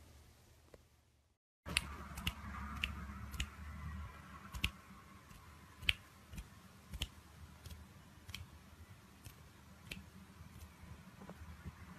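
Sharp clicks at an irregular pace, about fifteen in ten seconds, over a low steady hum. The sound drops out completely for a moment about a second and a half in, and the clicks begin just after.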